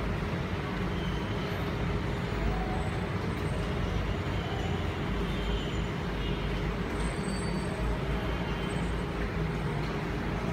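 Steady low background rumble that holds at an even level throughout, with no distinct events.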